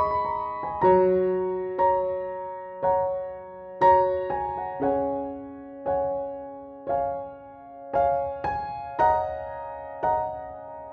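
Background music: a soft piano melody, notes struck about once a second and left to ring.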